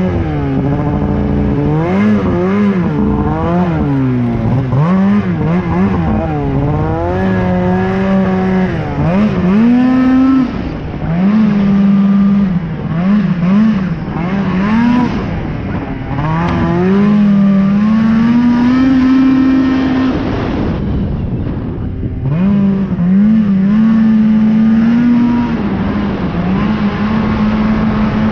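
Polaris RMK 800 snowmobile's two-stroke twin engine under way, its pitch rising and falling again and again with the throttle and held high for a few seconds at a time. It eases off briefly about three-quarters through, then picks up again.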